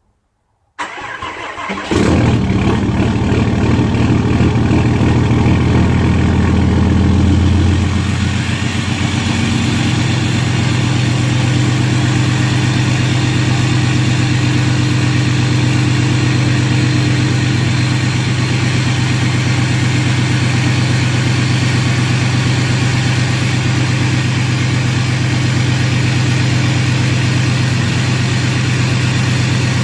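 6.7 Cummins turbodiesel cold-starting through a 4-inch turbo-back exhaust: the starter cranks for about a second, then the engine fires and runs loud and steady. About eight seconds in the deepest part of the sound drops away and it settles into a steady idle.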